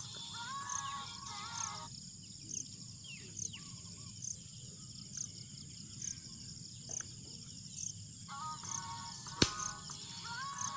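Faint music with a stepped melody, heard near the start and again near the end, over a high chirp repeating about once a second. About a second before the end comes one sharp clack, the loudest sound, like a film clapperboard snapping shut.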